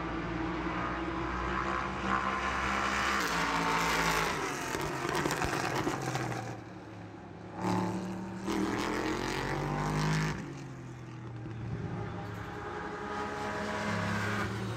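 Racing car engines at high revs, their pitch climbing and then sweeping up and down as cars go by, with a brief lull and a sharp surge a little past halfway.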